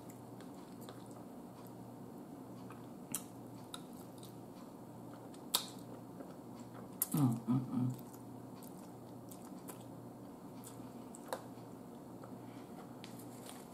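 Close-miked eating of buttery spaghetti: quiet chewing, with a few sharp clicks of a fork against the plate or teeth, and a short hummed "mm" about seven seconds in.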